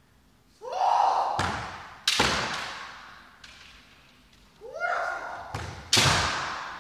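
Kendo sparring: two loud kiai shouts, each followed by sharp cracks of bamboo shinai strikes and foot-stamps on a wooden floor, echoing through a large hall.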